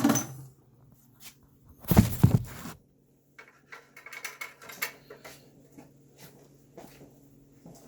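Bucket of flush water being emptied: a brief rush of water about two seconds in, then scattered light knocks and clicks of handling over a faint low hum.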